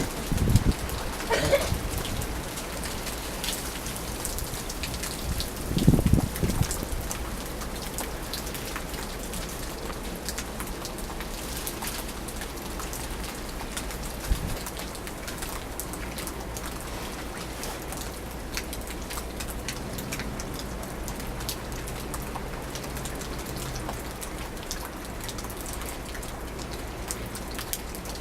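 Steady wind-driven precipitation pattering with many small ticks, during a winter storm's change from rain to snow. Two louder low rushes of wind gust come through, about a second in and about six seconds in.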